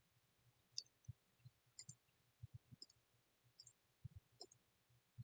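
Near silence with faint computer mouse clicks, about one a second, and a few soft low thumps.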